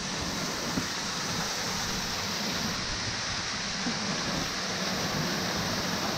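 Small waterfall splashing down a rock face into a shallow pool: a steady rush of falling water.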